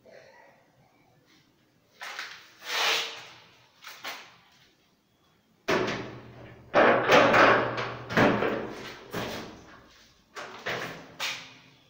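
A series of loud knocks and bangs with a room echo: a couple about two seconds in, a dense run from about six seconds in, and two more near the end.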